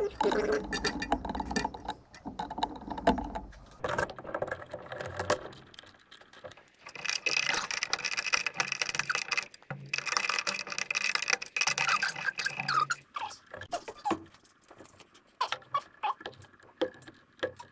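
Hand tools working electrical wire at a junction box: clicks, small metallic rattles and handling noise from wire strippers and pliers on insulated wire, with two stretches of scraping, rustling noise lasting a few seconds each in the middle.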